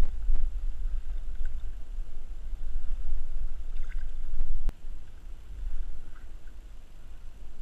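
Wind rumbling unevenly on a camera microphone, with faint splashing of water beside a small boat. A sharp click comes a little past halfway, after which the rumble is quieter.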